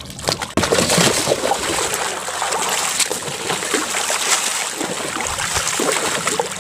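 A large eel hooked on a longline thrashing at the water's surface, splashing hard and continuously. The splashing starts about half a second in.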